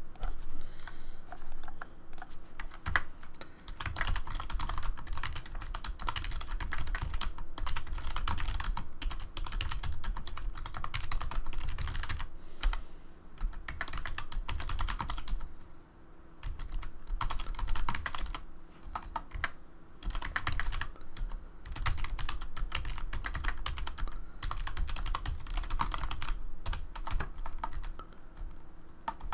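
Typing on a computer keyboard: rapid, continuous key clicks with a couple of brief pauses midway.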